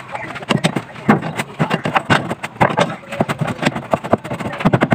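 Irregular clicks and clatter of hands and a tool working on intake parts in an engine bay, fitting a replacement hose.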